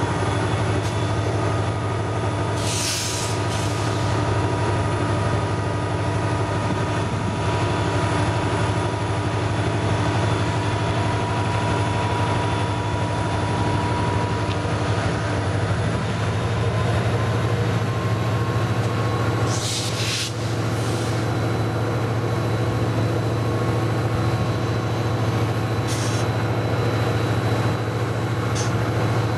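Lead diesel-electric freight locomotives running with a steady low engine drone and a few steady whining tones as the train creeps slowly forward. Short hisses break in a few times, the clearest about three seconds and twenty seconds in.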